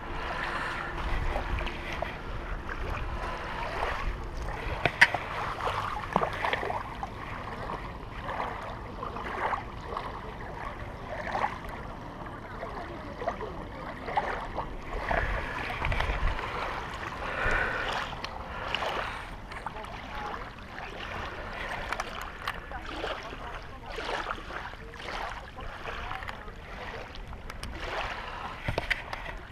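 Small waves lapping at a gravel shoreline, with gusts of wind on the microphone and scattered clicks and knocks of handling.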